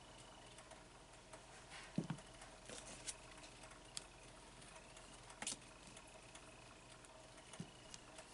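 Faint scattered clicks and light scrapes of a metal scraper and a silicone stamper against a metal nail-stamping plate as polish is scraped across the engraved design and picked up. A low tap about 2 s in and a sharp click about 5.5 s in are the loudest.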